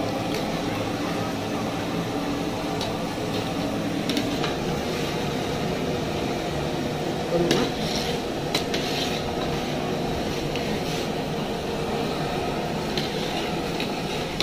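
Metal perforated ladle stirring rice in a large aluminium pot, scraping and clinking now and then against the pot's side, with the clinks bunched a little past halfway. A steady hum runs underneath.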